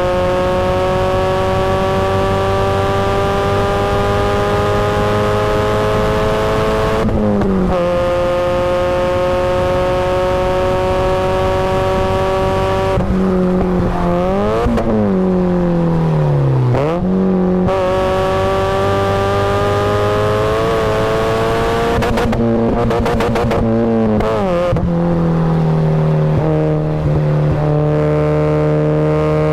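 Supercharged Mazda Miata's four-cylinder engine under hard acceleration on track, revs climbing steadily through the gears with upshifts about 7 and 13 seconds in. In the middle come quick rev blips with the pitch dropping (downshifting under braking), then it pulls again, with a run of rapid shifts near the end.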